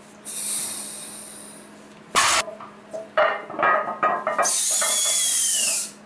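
Metal gym equipment being handled. A high scraping hiss comes first, then a sharp clank about two seconds in and several quicker clanks. Near the end a longer scraping hiss runs with a slight falling squeal.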